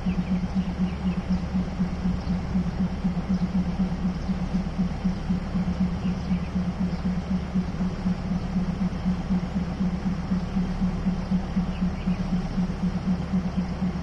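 Diesel engine of a stopped passenger train idling: a steady low throb with a fast, even pulse.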